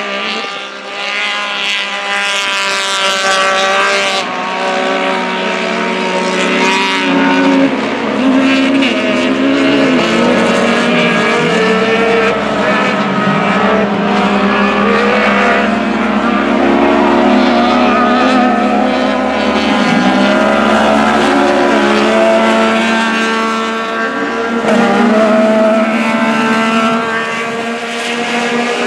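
Several side-by-side UTV race engines running hard around a dirt short course, their pitch rising and falling as they accelerate and back off for the corners.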